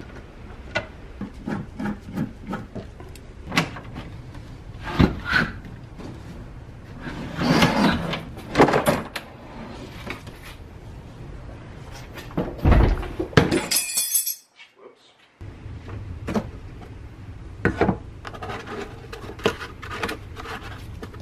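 Scattered knocks, clicks and rustles of gloved hands and tools working in a car's carpeted trunk while the floor is opened up to reach the fuel pump access cover, with a loud thump about 13 seconds in. The sound cuts out completely for about a second just after the thump.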